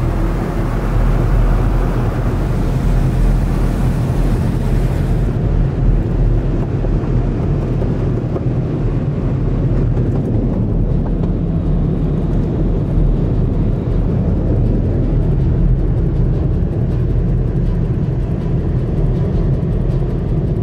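Car wash tunnel machinery heard from inside the car's cabin: a steady low rumble of the spinning cloth brushes and equipment. A higher hiss, most likely water spray, drops away about five seconds in.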